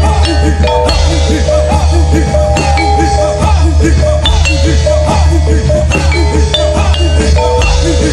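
Loud gamelan-style music for a kuda lumping dance: struck metallophone notes ringing in quick succession over a driving drum rhythm and a steady deep bass, with no singing.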